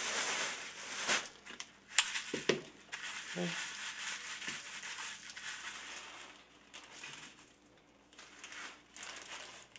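Dried herb sprigs rustling and crackling as hands shake and scoop them in a plastic colander, with some crinkling of a plastic bag. There is a sharp tap about two seconds in, and the rustling dies down toward the end.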